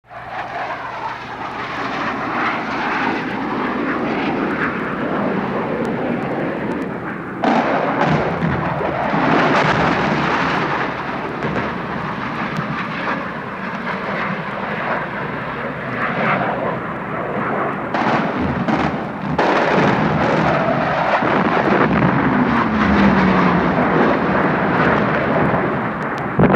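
Jet bomber in flight: a loud, steady jet engine noise that jumps up sharply in level twice, about a third of the way in and again about three quarters in. Near the end a whine falls in pitch as the aircraft passes.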